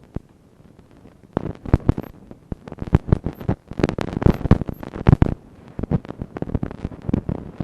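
Irregular clicks, taps and knocks of hands and tools handling a plastic laptop case during disassembly, sparse at first and most frequent about four to five seconds in.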